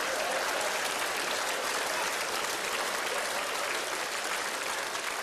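Large theatre audience applauding: dense, steady clapping from many hands.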